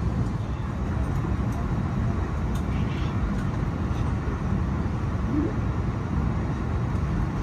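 Steady low rumble inside an Airbus A320 airliner's cabin on the ground before takeoff, the aircraft's engines and air system running, with a few faint small clicks.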